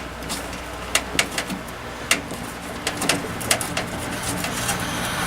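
Scattered sharp clicks and knocks of hands working inside a desktop PC case, fitting a video card into an expansion slot, over a steady low hum.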